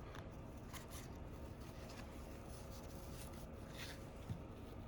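Faint scraping and a few light clicks as a prying tool is worked around the edge of an iPhone 12 screen to separate it from the frame.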